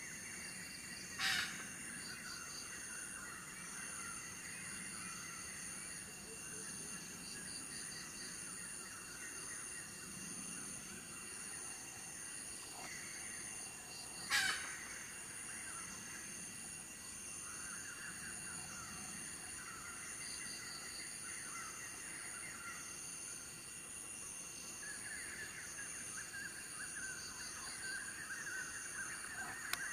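Countryside ambience: insects trilling steadily in several high, pulsing bands, with small birds chirping and twittering throughout, thickest near the end. Two brief sharp sounds stand out, about a second in and again around fourteen seconds.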